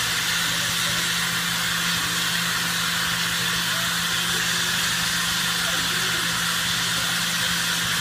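Steady hiss of air blowing from the shower heads of a Build-A-Bear bath station, over a low blower hum.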